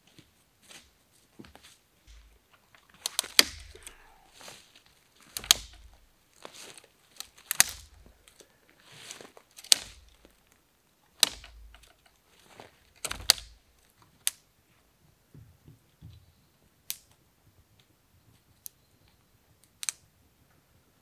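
Dry sticks and branches snapping, a sharp crack every couple of seconds, with rustling of dry leaf litter underfoot. After about 14 seconds the cracks stop and only a few faint clicks remain.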